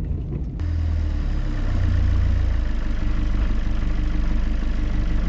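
Off-road vehicle's engine running steadily with a deep rumble, coming in abruptly about half a second in.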